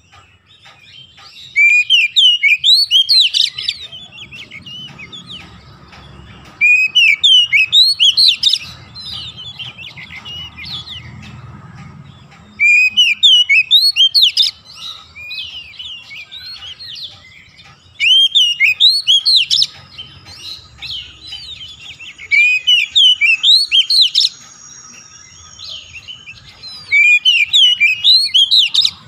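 Oriental magpie-robin singing: six loud bursts of quick, varied whistles, each about two seconds long, coming every five or six seconds, with quieter chirps in between.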